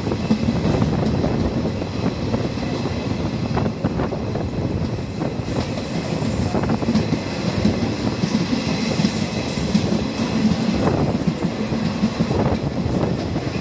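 Passenger train coach running along the track, heard from its open doorway: a steady rumble of wheels on rail with scattered clicks from rail joints.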